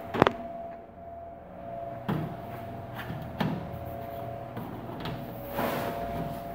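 A sharp knock, then a few softer knocks and a stretch of rubbing as a trim strip is pressed into place along the top edge of a glass pane set in a drywall frame. A faint steady hum runs underneath.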